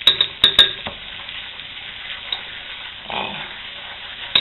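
Butter and flour sizzling in a frying pan as a roux, stirred with a wooden spoon. Several sharp spoon taps against the pan in the first second and again near the end.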